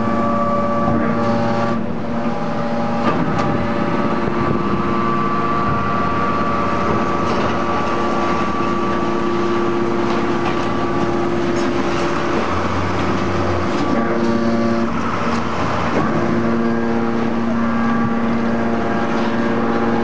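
Hydraulic power unit of a Y81F-3150 scrap metal baler running, a steady pump whine made of several tones that change a few times as the press cylinders work under load.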